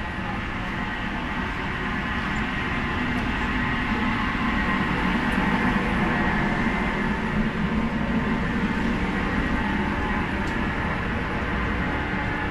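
Steady rushing roar of the ship's deck ventilation fans with a machine hum running through it, swelling a little in the middle.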